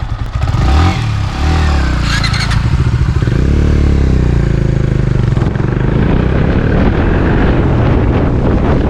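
Motorcycle engine running while riding, its pitch rising as it speeds up about three to five seconds in.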